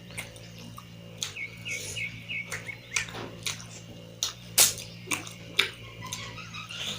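Close-miked wet chewing and lip-smacking of a person eating curry and rice in big bites, with sharp smacks every half second to a second over a steady low hum.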